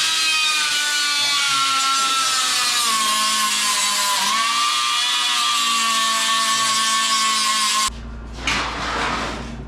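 Small angle grinder running on steel car-body metal, a steady high whine with a hiss. The pitch sags a little and dips briefly about four seconds in as it loads up, then the grinder shuts off sharply near the end, followed by a few light knocks.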